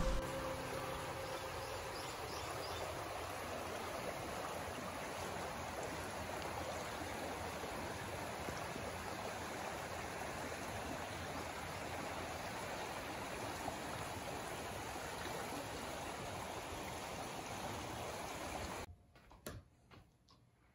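River water flowing, a steady rushing sound that cuts off suddenly near the end, leaving near silence with a few faint clicks.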